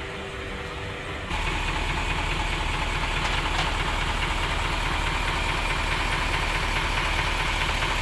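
Heavy diesel engine idling steadily, growing louder a little over a second in.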